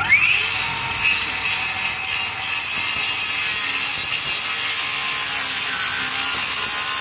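Metabo cordless circular saw spinning up with a rising whine, then cutting steadily through a wooden fascia board.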